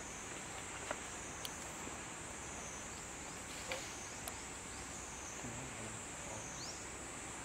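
Steady, high-pitched insect drone from the surrounding forest, wavering slightly, with a few short faint chirps and clicks scattered through it.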